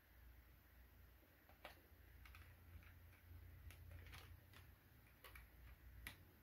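Faint, scattered small clicks and taps as a miniature toy truck is unscrewed and worked loose from its plastic display base, over a low steady hum.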